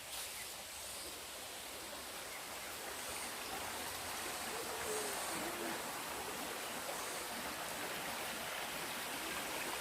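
Running water, a steady rushing of a stream, with faint high chirps now and then.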